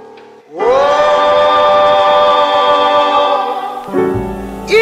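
Montage music: one long held note, sung choir-like, sliding up into pitch about half a second in and holding steady, with a deep bass coming in near the end.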